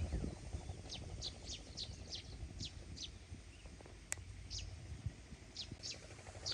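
A bird calling in a run of short, high, falling chirps, a few each second, over a low rumble, with a single sharp click about four seconds in.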